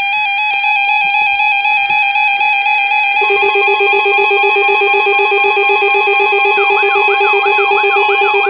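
Several electronic alert receivers sounding their alarm tones together for an Emergency Alert System required weekly test. Steady electronic tones, with a lower tone joining about three seconds in and a fast warbling siren-like tone about six and a half seconds in.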